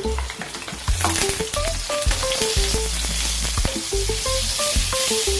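Dried anchovies frying in hot oil in a pan: a steady sizzle that grows louder about a second in. Background music with a plucked melody plays over it.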